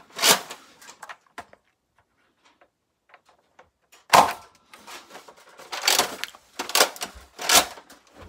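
Toy foam-ball blasters shooting: a short puff just after the start, a sharp crack about four seconds in, then three more puffs under a second apart near the end.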